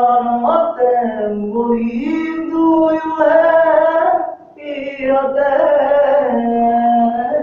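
A young man singing without accompaniment in a tiled bathroom, holding long notes that step up and down in pitch, with a short break for breath about four and a half seconds in.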